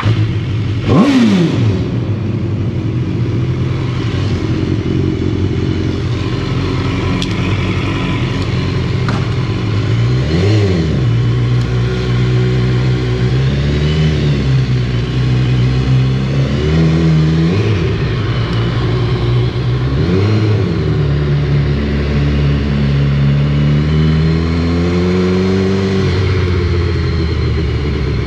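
Motorcycle engine inside a parking garage: it comes up loud right at the start with a rev flare that falls back within two seconds. It then runs at low speed, its pitch rising and falling several times as the throttle is opened and closed.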